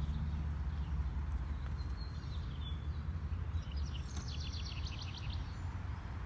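A songbird sings a quick trill of rapidly repeated high notes in the middle, after a short chirp, over a steady low rumble.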